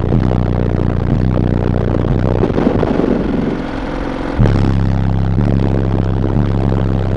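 Loud bass-heavy music played through car subwoofers, deep bass notes changing pitch in steps. The bass drops out briefly about three and a half seconds in, then comes back.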